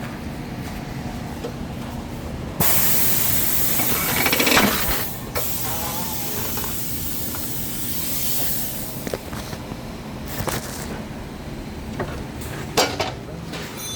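A sudden burst of hissing air lasting a few seconds, then a weaker hiss and a few short metallic knocks.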